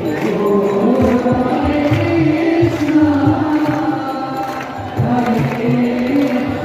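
Music: several voices singing in a chant-like style over a steady beat.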